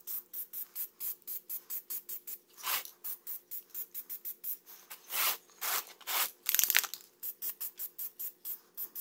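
Aerosol can of Plasti Dip spraying in quick short hisses, about four a second, with a few longer hisses in the middle, sped up to triple speed. A faint steady hum runs beneath.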